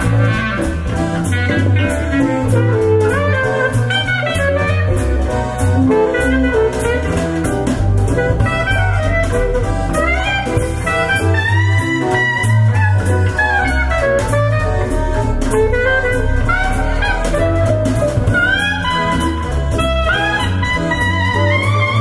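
Jazz demo music: a melodic lead line gliding over a steady, pulsing bass.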